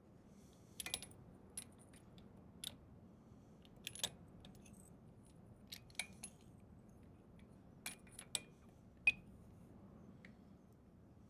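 Small metal objects clinking as they are handled: about a dozen short, light clicks and clinks spread over several seconds. The loudest comes about nine seconds in.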